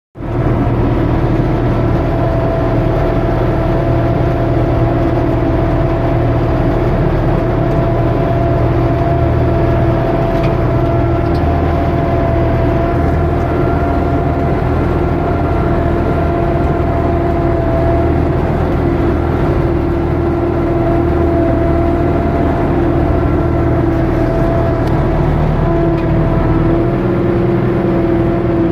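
Universal U650 tractor's four-cylinder diesel engine running steadily under heavy load while pulling a plough through deep ploughing.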